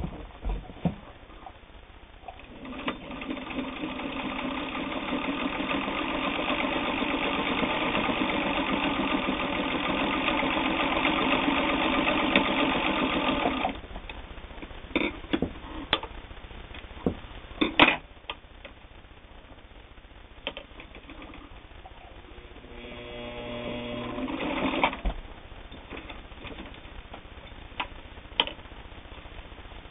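Singer 301 all-metal, gear-driven straight-stitch sewing machine stitching through eight layers of heavy denim, picking up speed and running steadily for about eleven seconds before stopping suddenly. A few clicks and knocks follow, then a second short run of stitching about three quarters of the way in.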